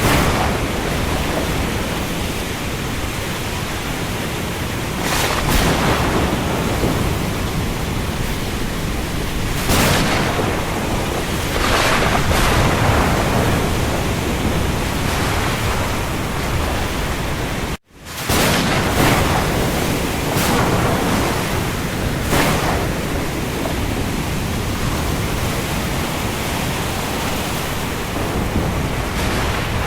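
Rain falling on the sea: a steady, loud hiss with broad surges every few seconds. The sound drops out for an instant a little past halfway, then returns.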